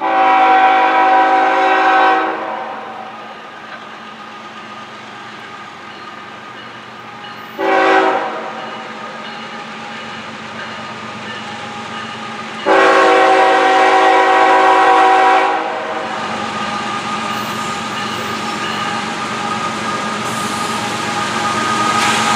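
CSX freight locomotive's multi-chime air horn blowing a long blast, a short one and another long one, the pattern sounded for a grade crossing. Under and after the blasts the train's rumble grows louder as it nears.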